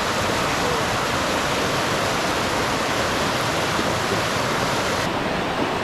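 Steady loud rush of falling water from a waterfall, an even roar with no break; the highest hiss thins a little about five seconds in.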